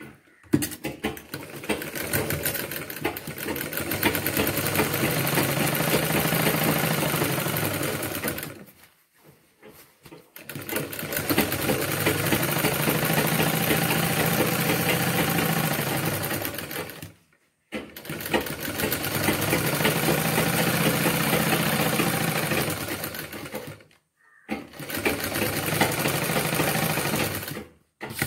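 Sewing machine stitching a seam through fabric in four runs of several seconds each, running up to a steady speed and stopping briefly between runs.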